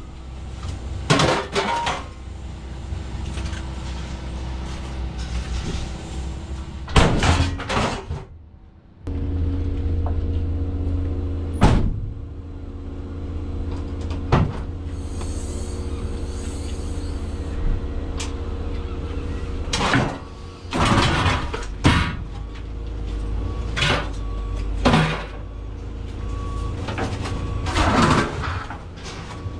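A vehicle engine running steadily, with a dozen or so sharp knocks and clanks over it. The hum briefly dies away about eight seconds in, then picks up again.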